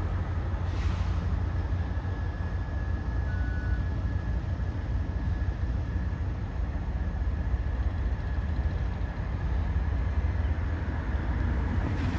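Steady low rumble of an approaching CSX freight train's diesel locomotive, with no horn yet.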